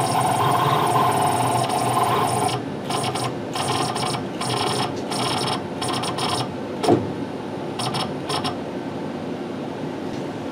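Tormach 8L CNC lathe's X-axis drive moving the cross slide in toward the chuck. A steady motor whine runs for about two and a half seconds, then breaks into a run of short starts and stops as the slide is jogged into place. There is a single knock about seven seconds in.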